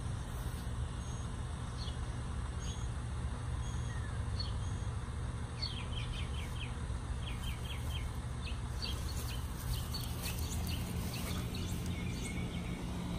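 Birds chirping in quick runs of short high notes, starting about five seconds in, over a steady low hum.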